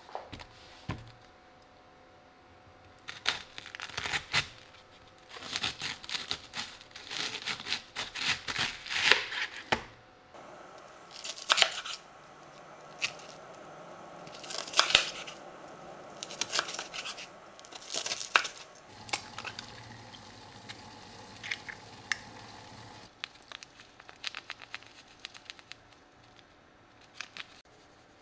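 Chef's knife cutting through a head of raw cabbage on a cutting board: crisp crunching cuts and knife taps against the board, in runs of quick strokes. The cuts thin out to a few light clicks near the end.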